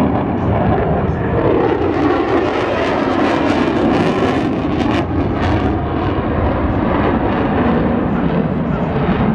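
Jet noise from a USAF F-35A Lightning II's single Pratt & Whitney F135 turbofan engine as the fighter flies its display. The sound is loud and continuous. Its hiss builds toward about four seconds in and drops off sharply around five seconds in.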